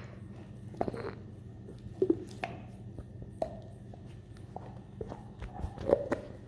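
Weimaraner gnawing on a meaty bone: irregular crunches and clicks of teeth on bone, the loudest near the end.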